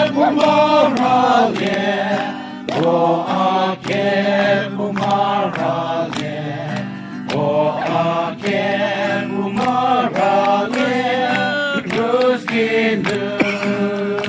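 A group of voices singing a song together, with long held notes over a steady low tone underneath.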